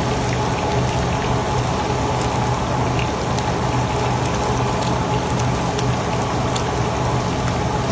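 Pomfret deep-frying in a wok of hot oil: steady sizzling and bubbling with scattered small pops, over a steady low hum.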